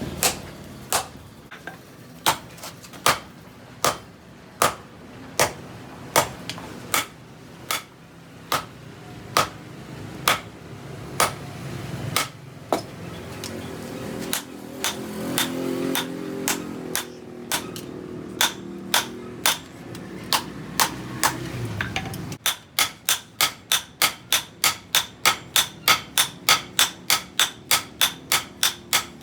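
Hand hammer striking steel on an anvil during forging of a cleaver: steady blows a little more than one a second. About two-thirds of the way through they change to a quicker run of about three blows a second, each with a clear metallic ring.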